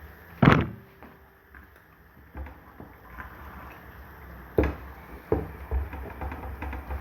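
Cookware knocking and clattering while stew is tended: one sharp loud knock about half a second in, then a few lighter knocks.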